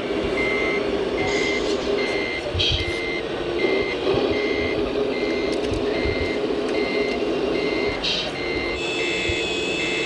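Reversing beeper on a radio-controlled construction model, beeping steadily at one pitch about three times every two seconds over the steady low hum of the model's engine sound.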